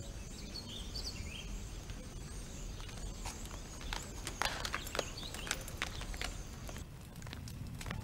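Outdoor ambience with a few faint bird chirps in the first second or two, then a run of sharp footsteps and clicks around the middle. The background drops slightly near the end.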